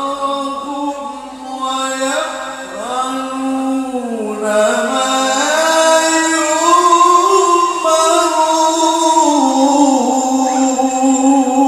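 A man's voice chanting in long, ornamented held notes into a handheld microphone, in the melodic style of Quranic recitation. The line climbs to its highest and loudest in the middle and falls away near the end.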